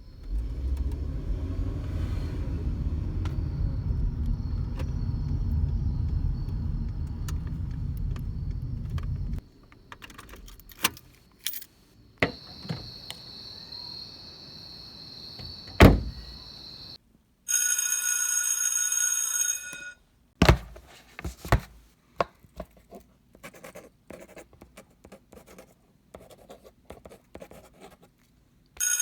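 An engine running with a low rumble, cut off about nine seconds in. Then come scattered clicks and knocks, a steady high tone, one loud thud, and a bell-like ringing that lasts about two seconds, followed by a few faint clicks.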